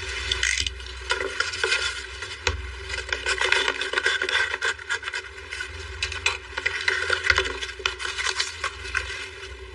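Irregular rubbing and light knocking of things being handled close by, many small clicks and scrapes.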